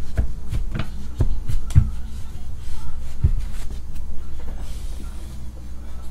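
A stack of trading cards handled, tapped square and set down on a table: a string of light knocks and rustles in the first three seconds or so, over a steady low hum.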